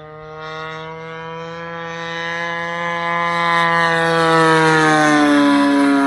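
DLE 20cc single-cylinder two-stroke gas engine on a Seagull Models RV-8 RC plane running at high throttle in flight. The whine grows steadily louder as the plane approaches, and its pitch dips slightly near the end. The engine is new and still breaking in.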